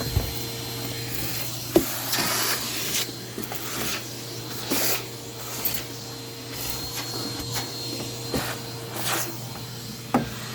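Vacuum cleaner running with a steady hum, broken by scattered sharp clicks and short bursts of hiss as cookie crumbs and small bits are sucked up.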